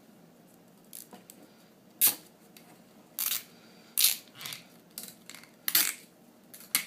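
Plastic clicks and knocks from laptop power supply bricks and nylon cable ties being handled and threaded while the supplies are bundled together: about seven separate sharp clicks, unevenly spaced, a few of them a little longer and scratchier.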